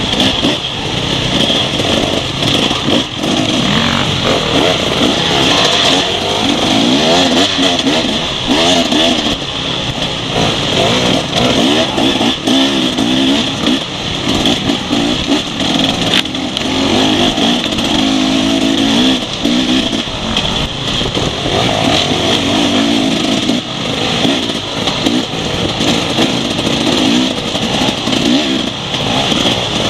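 Enduro dirt bike engines revving up and down over and over as they are ridden along a rough trail, heard close up from on board, with short knocks and rattles from the bike over bumps.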